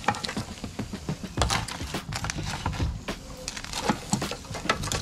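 Irregular clicks and knocks of hard-shelled cooked blue swimmer crabs being handled and set down, with some crackling.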